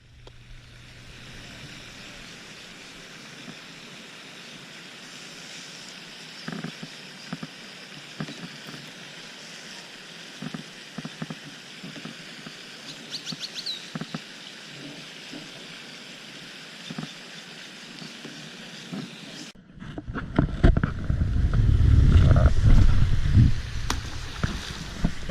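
Steady outdoor hiss with a few faint clicks and a brief high chirping in the middle. After a cut about 20 seconds in, a loud, rough low rumble from the microphone takes over.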